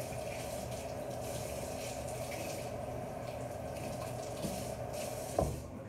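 Water running steadily from a tap into a sink, cut off about five seconds in with a knock.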